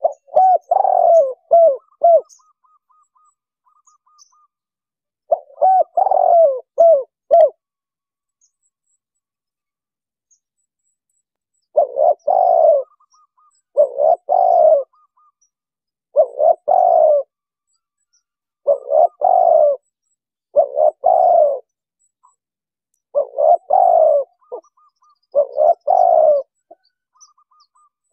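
Spotted dove cooing in repeated short phrases of low, rolling coos, about nine phrases with pauses between them. Faint high chirps of small birds come in the background.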